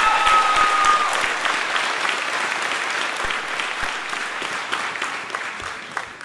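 Audience applauding, with a held high note ringing over the clapping in the first second. The clapping fades gradually and stops near the end.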